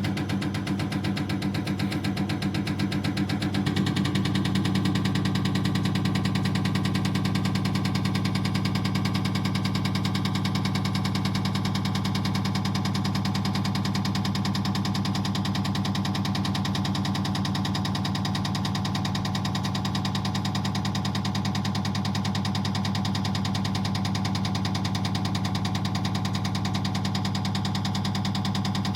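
CR618 diesel injector test bench running a Caterpillar 3126B HEUI injector: a steady machine hum with rapid, even ticking from the injector firing. The sound shifts slightly about four seconds in, then holds steady.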